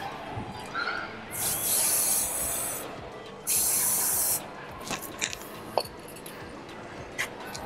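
Aerosol can of Rust-Oleum high-temperature black caliper paint spraying in two short bursts, the first about a second and a half long and the second about a second, each cut off sharply. A few light clicks follow.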